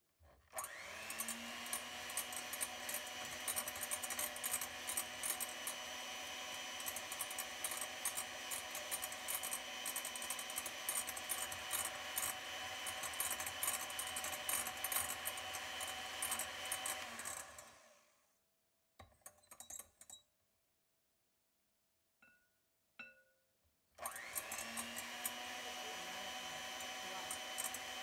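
Electric hand mixer whipping egg whites and sugar into meringue in a glass bowl. The motor whine rises as it spins up and then runs steadily. It winds down about 18 seconds in and starts again about 24 seconds in.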